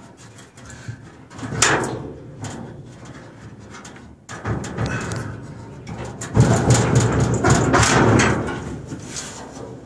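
Heavy metal parts of an old crane's machinery being worked by hand: a sharp clunk about one and a half seconds in, then a louder rough scraping rumble from about six to nine seconds.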